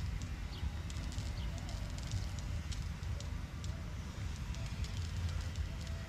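Water spinach plants being pulled up by hand: irregular crackling and rustling of stems, leaves and roots tearing out of the soil, over a steady low rumble.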